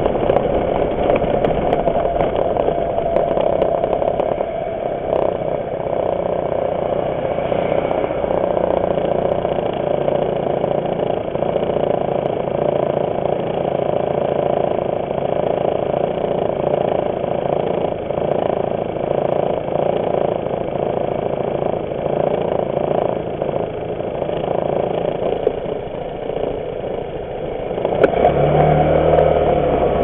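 Aprilia SportCity scooter's engine running at low road speed, a steady drone mixed with wind and road noise. Near the end there is a sharp click, then the engine gets louder as it accelerates.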